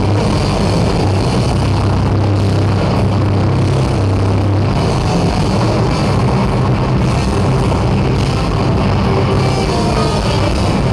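Heavy metal band playing live, loud and dense, with electric bass and distorted guitars, recorded from within the audience. The low bass notes change about halfway through.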